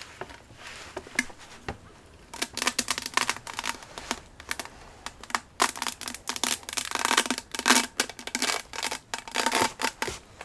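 Thin cured-resin support struts on a resin 3D print snapping off by the handful as they are pulled away: dense runs of crisp crackling snaps, with short pauses between the handfuls.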